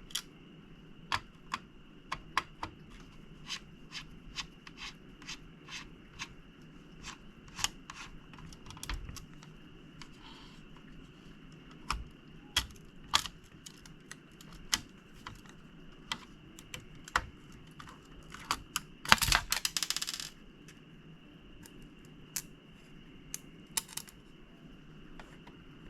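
Screws being removed from a graphics card's metal backplate: irregular sharp metallic clicks and clinks, roughly one a second, as the screwdriver works and small screws are set down, with a short scraping rustle about three quarters of the way through.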